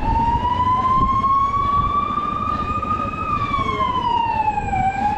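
Vehicle siren wailing: its pitch climbs slowly for about three seconds, falls, then starts to rise again near the end, over a steady low rumble.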